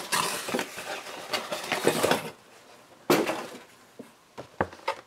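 Cardboard shipping box being handled as a boxed vinyl figure is lifted out: rustling and scraping of cardboard for about two seconds, then a few sharp knocks.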